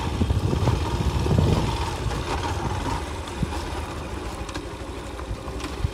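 Single-cylinder motorcycle engine running, with low wind rumble on the microphone; it is louder for the first couple of seconds, then settles to a steadier, lower sound.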